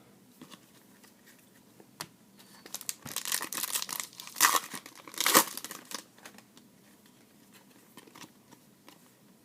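A trading-card pack wrapper being torn open and crinkled: a click about two seconds in, then a few seconds of tearing and crackling that peaks twice before dying away.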